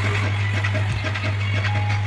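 Background music over a steady low hum.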